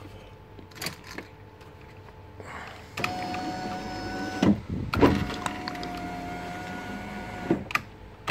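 Toyota Avalon power window motor driving the window regulator, a steady electric whine. It runs for about a second and a half, then a couple of loud knocks, then it runs again for about two and a half seconds and stops with a click.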